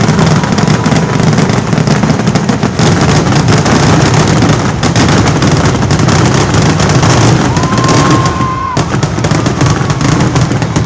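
Fireworks display: a dense, unbroken barrage of rapid bangs and crackles. About three quarters of the way in, a steady whistling tone holds for about a second, then cuts off suddenly.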